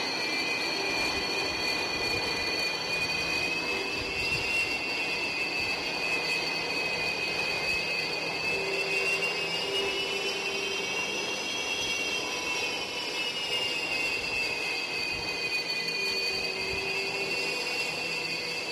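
Su-33 fighter's twin AL-31F turbofan engines running: steady jet noise with a high-pitched turbine whine that rises a little about ten seconds in and then settles back.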